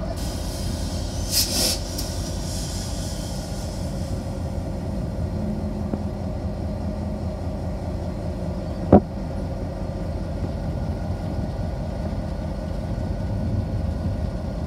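Diesel locomotive idling with a steady low rumble. A short hiss comes about one and a half seconds in, and a sharp click about nine seconds in.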